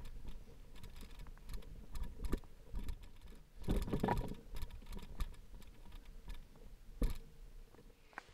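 Bicycle rattling and clicking as it rolls over a bumpy paved path, with a low rumble underneath. The rumble grows louder for a moment about four seconds in, and there is a sharp knock about seven seconds in.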